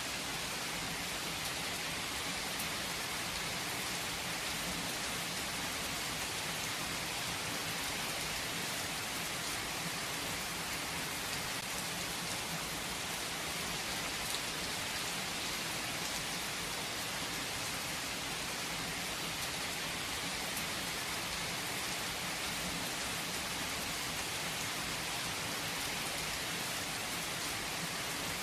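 Steady rain falling, an even hiss of many drops with faint individual drop ticks, unchanging throughout.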